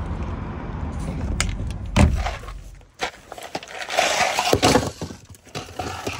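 Low vehicle rumble across a truck-stop parking lot with a sharp thump about two seconds in; it cuts off at about three seconds, giving way to a bag rustling and plastic supplement bottles knocking and clattering as they are set down on a table.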